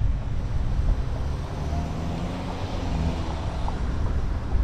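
Steady low rumble of a car driving at low speed, picked up by a camera mounted on the car's roof, with wind buffeting the microphone. The rumble eases a little in the middle and builds again near the end.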